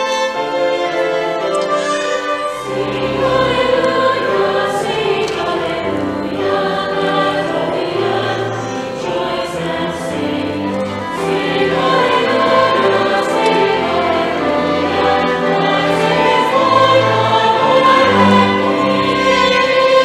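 Mixed choir singing a Christmas piece in parts, accompanied by violins and a bowed upright double bass holding low notes under the voices.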